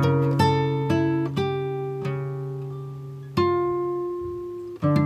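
Background music of slow, plucked guitar notes. Each note starts sharply and rings out, fading before the next one.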